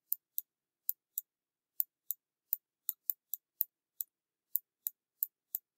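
Light, sharp clicks at an uneven pace of about three a second, one with each pen stroke as a word is hand-written on a computer screen with the pointing device.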